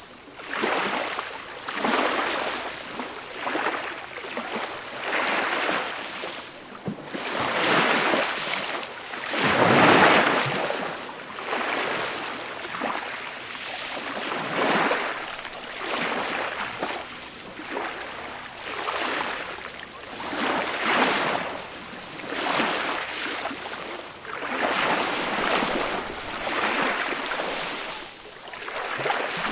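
Gentle small waves breaking and washing up a beach, in a steady run of swells and ebbs every second or two; the biggest wave comes about ten seconds in.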